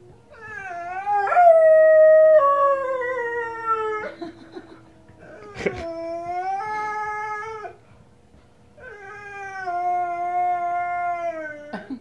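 Presa Canario howling: three long howls with short breaks between them, the first sliding down in pitch and the last holding level before dropping at the end.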